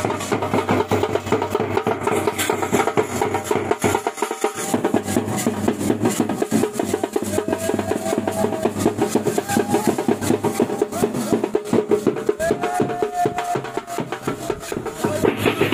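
Wedding band drumming: a bass drum and a snare drum beaten together in a fast, steady rhythm.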